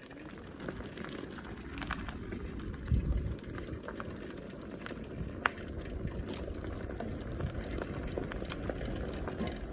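Bicycle rolling along a rough jungle path: a steady low rumble with a continuous crackle of the tyres over grit and small stones, and a louder bump about three seconds in.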